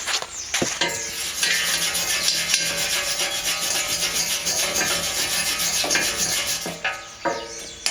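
A wire brush scrubbing over freshly welded steel to clean up the welds: a steady, rough scraping with brief breaks about half a second in and again near the end.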